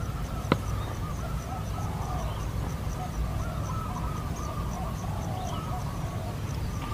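Birds calling steadily in the background, a wavering chirping that runs on without pause, over a low wind rumble on the microphone. A single light click sounds about half a second in.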